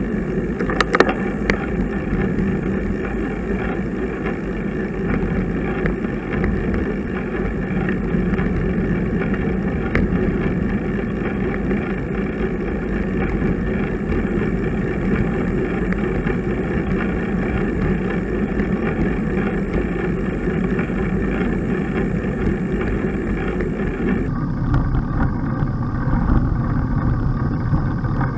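Steady rushing noise of a road bicycle being ridden, with wind over the ride camera's microphone and tyre hum on the road. A few sharp clicks come about a second in, and the noise changes abruptly about 24 seconds in.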